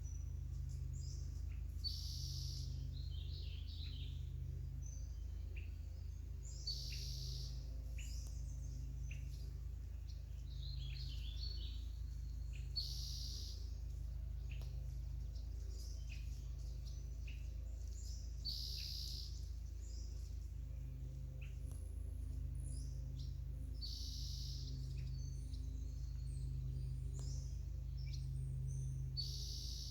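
Songbirds singing: one bird repeats a short, bright song about every five or six seconds, with scattered smaller chirps in between, over a steady low hum.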